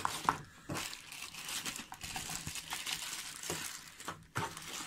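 Clear plastic packaging bag crinkling as it is handled, an irregular rustle with a few sharper crackles.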